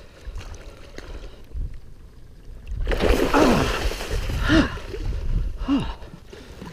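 A hooked alligator gar thrashing in the shallows at the bank: a loud burst of splashing starts about three seconds in and lasts about a second and a half. A man gives a few short strained grunts as he fights the fish on the rod.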